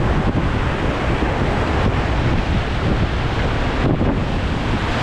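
Whitewater rapid rushing and crashing around a raft, a loud steady roar of water with wind buffeting the microphone.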